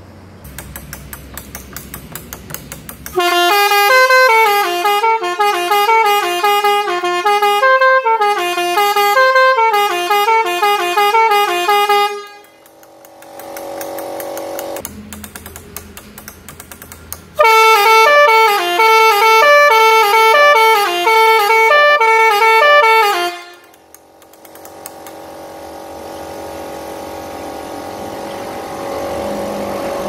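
Six-trumpet 'Pakistan' telolet air horn set playing tunes: quick runs of different horn notes in two bursts, about nine and six seconds long. Between and after them a quieter steady drone runs on.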